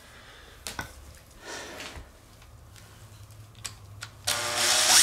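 A few faint handling clicks and a rustle, then about four seconds in a cordless drill starts up and grows louder quickly. It is spinning a wooden spindle against a wooden hearth board to build friction heat for a fire.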